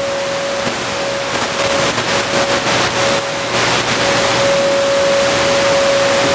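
Weak shortwave broadcast on 7585 kHz received on a Tecsun PL-310ET portable radio: mostly steady static hiss with a constant whistle running through it. The noise swells and wavers about two to three seconds in as the signal fades.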